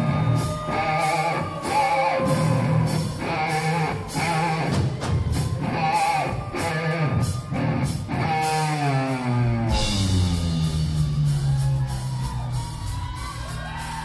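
Three-piece rock band playing live: drums, bass and electric guitar come in together at once right at the start, with a voice singing over them. About eight seconds in, a pitch slides steadily downward.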